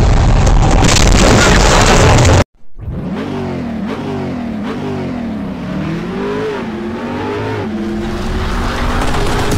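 Steady road and engine noise inside a car on a highway, cut off abruptly about two and a half seconds in. Then a car engine revs repeatedly, its pitch rising and falling about five times, before settling into a steady high note near the end.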